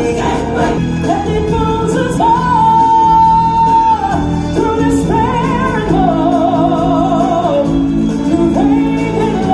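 Stage-show music: a singer holds long notes, one steady and a later one wavering with vibrato, over a full musical accompaniment.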